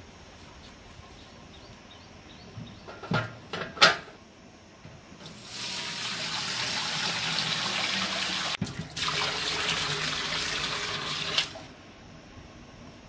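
Water poured from a metal bucket into a large aluminium pot, a steady splashing gush lasting about six seconds that stops before the end. A few sharp knocks come just before the pour.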